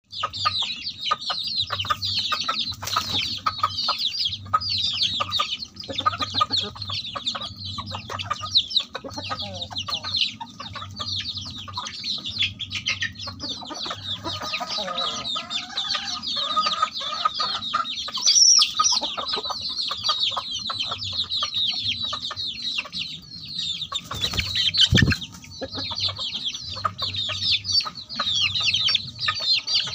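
Flock of desi village chickens: chicks peep constantly in rapid high cheeps, while hens cluck lower, mostly around the middle. A single thump comes about 25 seconds in.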